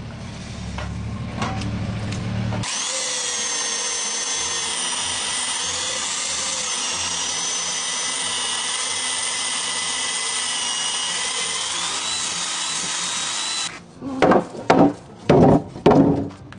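Power drill with a 21 mm auger bit boring an anchor-bolt hole through a wooden sill. A low hum comes first, then a steady high whine about two and a half seconds in as the bit cuts, lasting roughly eleven seconds before it stops abruptly. Four or five short loud bursts follow near the end.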